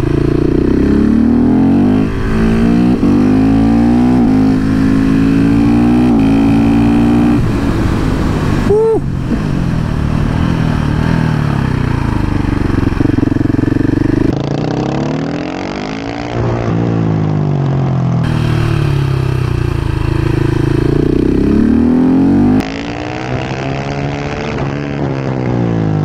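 KTM 690 SMC R's single-cylinder four-stroke engine under hard riding. The revs climb through several quick upshifts, fall away about halfway through as the throttle is closed, then pull up again with another shift near the end.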